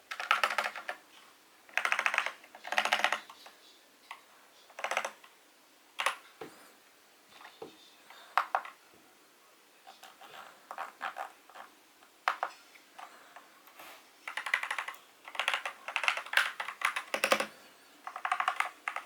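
Attack Shark K75 mechanical keyboard being typed on in quick flurries of keystrokes with short pauses between; its switches are what the owner takes for brown switches.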